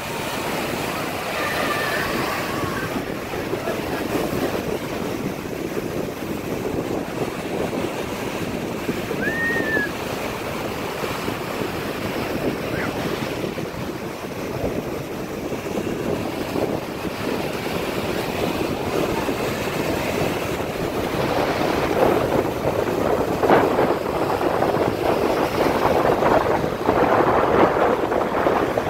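Surf breaking and washing over a sandy beach, with wind on the microphone. The waves grow louder and rougher in the last several seconds.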